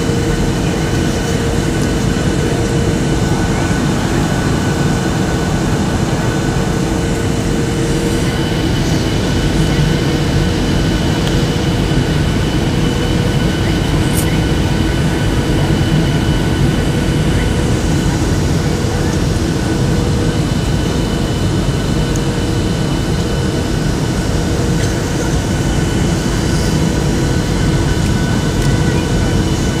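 Steady cabin noise of a Boeing 737-800 on approach, heard from a window seat over the wing: the CFM56 engines and airflow make an even roar with a few steady whining tones. A single brief click about fourteen seconds in.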